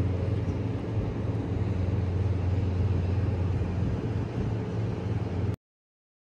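Steady low hum and rushing noise of a moving vehicle, cut off abruptly near the end.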